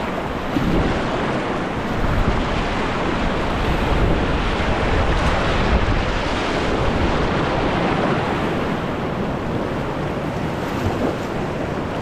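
Whitewater rapid rushing and churning around a kayak, heard from the boat itself, with water splashing at the bow.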